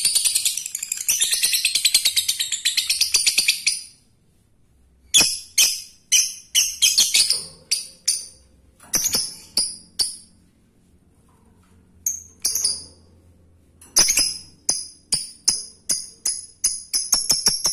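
Lovebird chattering in a long fast run of high, shrill notes (the 'ngekek'), which breaks off about four seconds in. Then come sharp single chirps in short series with pauses between, and from about fourteen seconds a string of chirps quickens back into rapid chatter.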